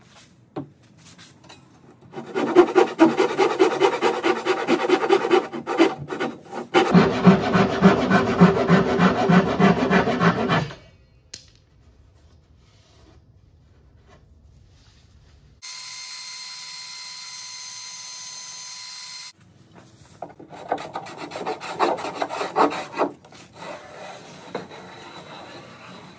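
Hand rasp shaping a sapele keel strip on a wooden hull: runs of quick, rhythmic rasping strokes lasting a few seconds each, with a quiet pause in the middle. Partway through, a steady machine whine runs for a few seconds.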